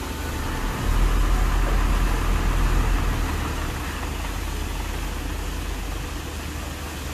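Motor vehicle running with road noise: a steady low engine rumble under a broad hiss, a little louder for the first three seconds, then easing.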